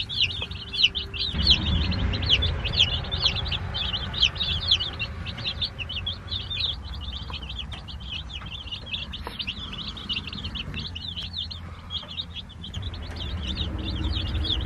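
A brood of baby meat-bird chicks peeping nonstop, many short, high, falling chirps overlapping, with a low rumble underneath from about a second and a half in.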